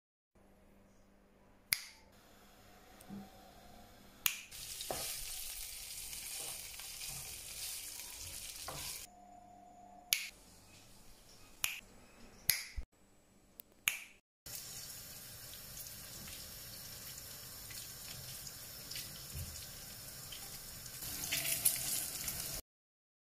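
Guanciale strips sizzling steadily as they fry in a pan, through the second half. Before that come a few sharp clicks and knocks from kitchen work, and a shorter stretch of similar hissing.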